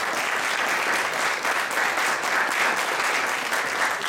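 Audience applauding, a dense steady patter of many people clapping.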